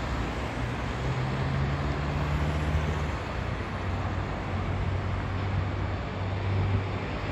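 Steady city street traffic: even road noise with the low hum of passing and idling vehicle engines.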